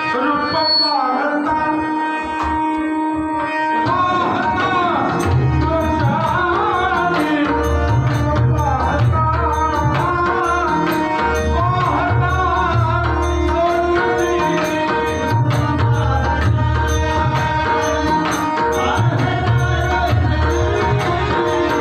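Devotional bhajan played live: a man singing over harmonium, accompanied by pakhavaj and tabla. Heavy bass drum strokes come in strongly about four seconds in and keep a steady rhythm under the held harmonium notes.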